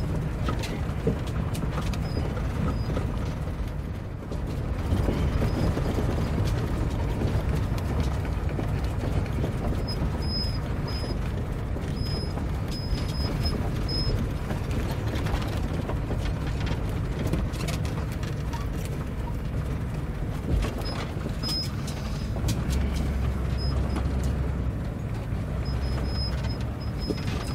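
Class C motorhome driving over a rough dirt road, heard from inside the cab: a steady low engine and road rumble with frequent short rattles and knocks.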